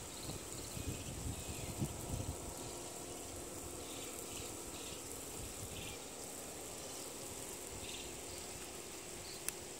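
Outdoor ambience with a steady high-pitched insect drone, short chirps at intervals, and a low rumble in the first couple of seconds. A sharp click comes near the end.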